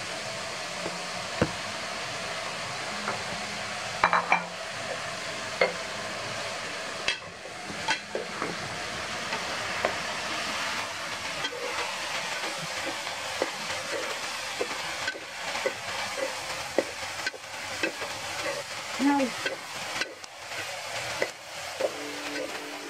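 Stir-fry sizzling in an electric skillet, with frequent short clicks and scrapes of a spatula and wooden spoon tossing tofu, bean sprouts and chives in the pan.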